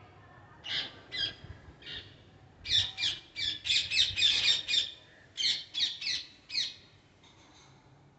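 Parrot squawking: a run of about sixteen short, harsh calls over some six seconds, coming fastest and loudest in the middle of the run.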